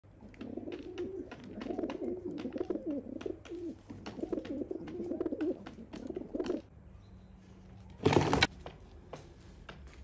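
Pigeons cooing in a low, warbling coo for about six seconds, over frequent light ticks of pecking. About eight seconds in comes a loud burst of noise lasting under half a second.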